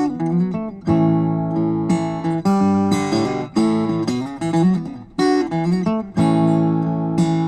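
Solo acoustic guitar playing a passage of chords, each struck sharply and left to ring, with moving bass notes between them.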